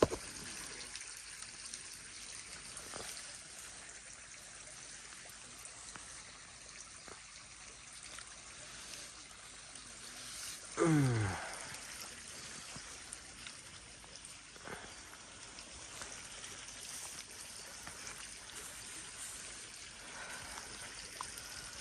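Steady trickling, flowing water. About halfway through, a short loud call that slides down in pitch cuts across it, with a few faint clicks here and there.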